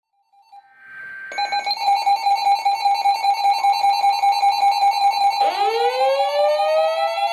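EAS two-tone attention signal, the 853 and 960 Hz tones sounded together, starting suddenly about a second and a half in and holding steady: the alarm that opens a new emergency alert. About five and a half seconds in, a second tone sweeps up in pitch and levels off just below it.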